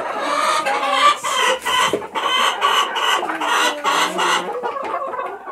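Several hens clucking and cackling, their short calls overlapping one after another.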